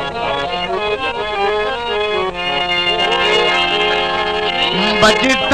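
Harmonium playing an instrumental melodic passage between sung verses of a qaseeda, the melody stepping through held notes over a steady low drone. A singer's voice comes in near the end.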